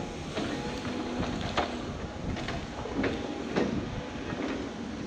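Caterpillar 349F excavator's C13 diesel engine and hydraulics running under load with a steady hum, broken by irregular sharp clanks and knocks as the boom swings and the bucket works among the stumps.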